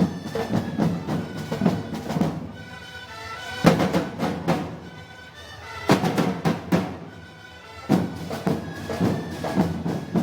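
Moros y Cristianos festival band music: heavy drum strikes with sustained pitched notes above them, played in phrases of a couple of seconds broken by short pauses.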